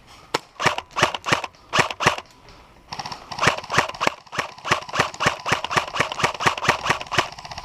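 Airsoft guns firing: a few scattered shots in the first two seconds, then from about three seconds in a steady string of rapid shots, about five a second, that stops just before the end.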